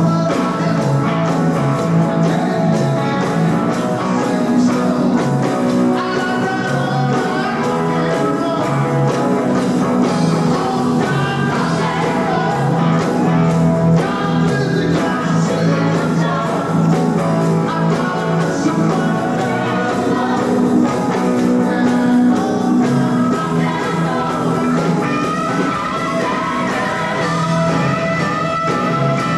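Live rock and roll band playing a song, with guitar and a singer's voice over a steady bass line.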